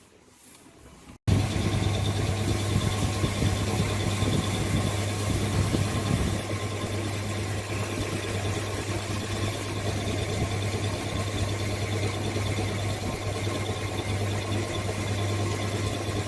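An electric motor-driven workshop tool starts abruptly about a second in and runs steadily with a strong low mains-like hum.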